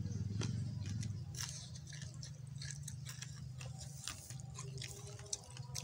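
Close-up eating sounds: chewing and pulling apart grilled chicken by hand, many short clicks and smacks, over a steady low hum.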